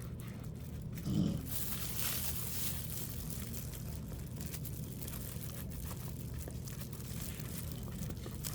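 A makeup brush scratching and rustling as it dry-brushes powder into a silicone mold, with many small scratchy strokes over a steady low hum. A brief low sound about a second in is the loudest moment.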